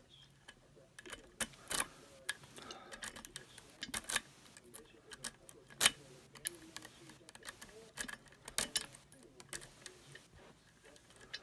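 Lock pick and tension wrench working in the keyway of a pinned challenge lock: irregular small metal clicks and ticks, with a few sharper, louder clicks.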